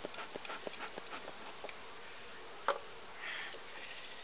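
Honeybee colony buzzing at an open hive, the bees stirred up by the hive being opened. Light clicks of wood and tools run through it, with one sharp knock about two-thirds of the way in.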